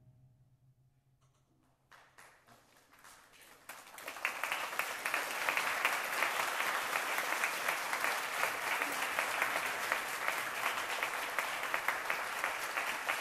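A brief hush, then applause: scattered claps start about two seconds in and swell into full, steady clapping from a room of people by about four seconds.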